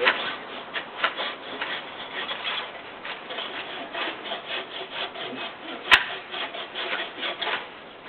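Wood being cut with a hand saw in quick, uneven back-and-forth strokes, with one sharp crack about six seconds in.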